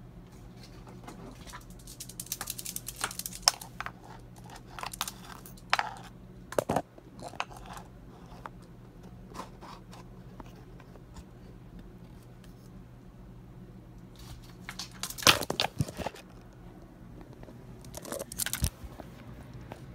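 Scattered clusters of rustling and sharp clicks over a steady low hum; near the end, the rustle of a phone being picked up and handled against fabric.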